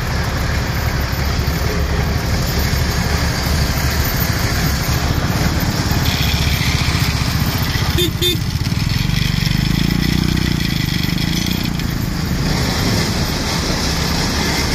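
Diesel engine of a Kubota DC105X tracked combine harvester running steadily as the machine moves slowly. A little past halfway there is a brief knock, and a deeper hum comes up for a few seconds.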